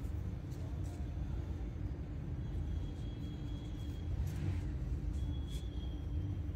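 Steady low rumble of background noise with a faint hum, and a brief soft rustle of cloth about four seconds in.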